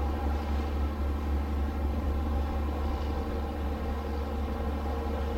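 Low, steady drone of marine diesel engines from a large Ro-Ro passenger ferry and the tugboat pushing alongside it, a deep hum with a faint layer of steady tones above it.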